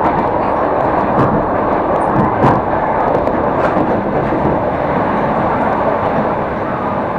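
Electric suburban train running along the line, heard from inside the carriage: a steady rushing rumble of wheels on rails, with a few sharp clicks and knocks scattered through it.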